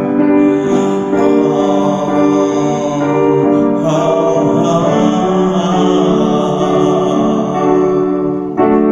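A man singing slowly over sustained chords played on a Korg electronic keyboard.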